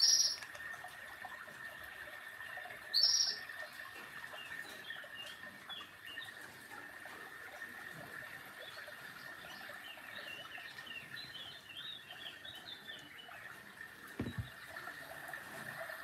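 Quiet room with a steady faint high whine, two short high beeps (one at the start, one about three seconds in) and faint scattered chirping in the background.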